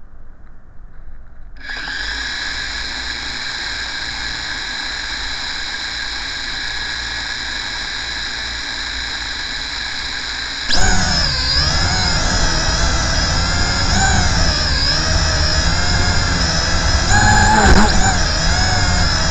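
Small electric motor whining. A steady high-pitched whine starts suddenly about two seconds in; about eleven seconds in it gets louder and its pitch starts rising and falling.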